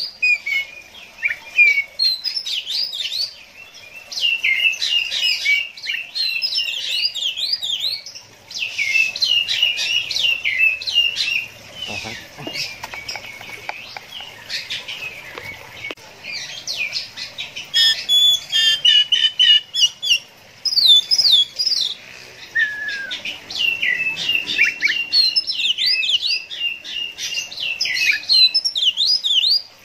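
Oriental magpie-robin singing: long, rapid runs of varied whistled and chattering notes, broken by a few short pauses.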